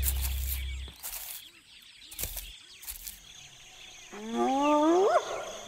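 Background music fades out in the first second. About four seconds in, a chorus of wild animal calls begins: several overlapping pitched cries that rise and fall.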